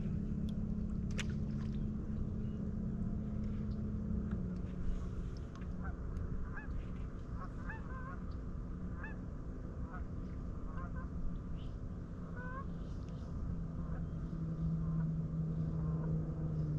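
Bass boat's bow-mounted electric trolling motor humming steadily, its pitch shifting about four seconds in and again near the end. Through the middle, a run of short honks from distant geese.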